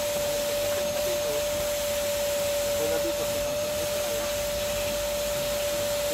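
Vacuum cleaner running steadily, a constant whine with a hiss, while it cleans inside a car.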